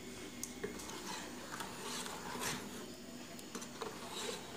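Faint, scattered scraping and light knocks of a plastic spoon stirring thick fermented rice batter (appam batter) in a steel pot.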